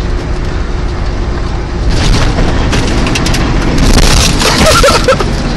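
Snow plow truck running at about 60 mph, heard from inside the cab: a steady engine and road rumble, then about two seconds in a much louder rushing crunch as the dropped plow blade cuts into the snow.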